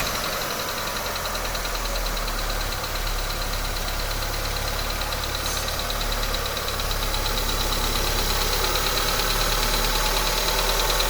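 Mitsubishi Colt Plus engine idling just after a cold start, with a fast, steady ticking over the idle: the unusual cold-start noise the owner wants diagnosed.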